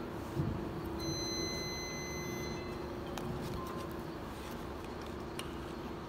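High-frequency plastic welding machine humming steadily, with a high steady tone for about a second and a half starting about a second in, and a few light clicks near the end.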